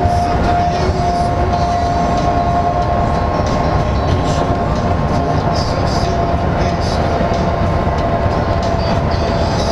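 Interior noise of a LiAZ-5292.65-03 city bus cruising at highway speed: a loud, steady low rumble of engine and tyres on the road, with a steady high whine running through it and faint rattles now and then.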